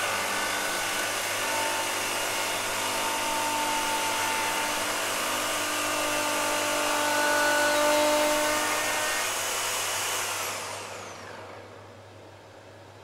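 Festool HK85 track saw with a groove cutter block cutting a rebate along a plywood board, running at a steady pitch. About ten and a half seconds in, the motor winds down, falling in pitch as it fades.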